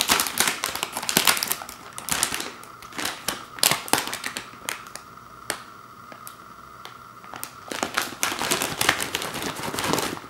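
Foil-lined plastic snack bag crinkling as it is pulled open and handled: dense crackling for the first few seconds, then scattered sharp crackles, then another burst of crinkling near the end.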